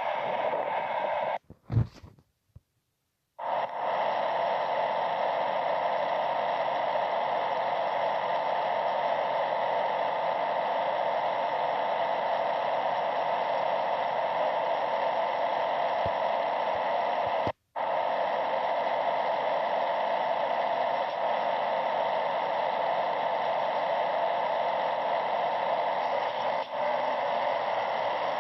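Steady, even hiss like radio static, with no engine or wheel sounds in it. It cuts out for about two seconds just after the start and briefly again a little past halfway.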